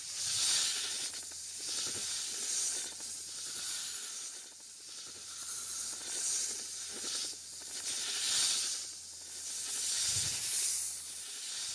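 Giant snake (Titanoboa) creature sound effect: a run of long, breathy hisses, each swelling and fading every second or two, with a faint low thud under a couple of them.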